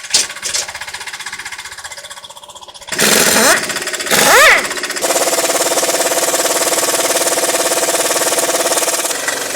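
Vehicle engine running with a fast, dense knocking rattle. It is revved up and back down briefly twice, then runs on steadily at a higher level.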